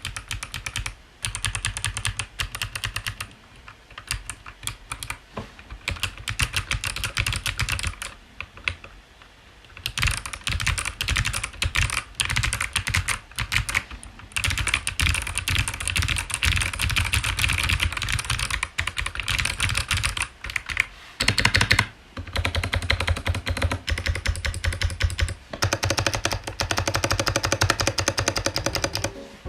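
Kailh Box Jade clicky switches in a Tofu65 aluminium keyboard being typed on fast, a dense run of sharp, clean clicks. There is a quieter pause of about two seconds about a third of the way through and a brief stop later.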